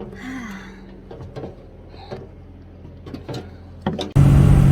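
Footsteps and small knocks on a trail, scattered and light. About four seconds in, a loud, steady rushing noise with a low hum cuts in abruptly.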